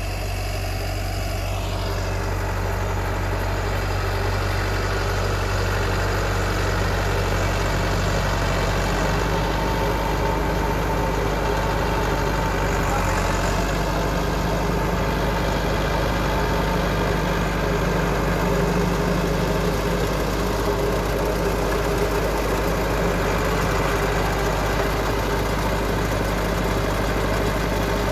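Massey Ferguson 385 tractor's diesel engine running steadily at low revs.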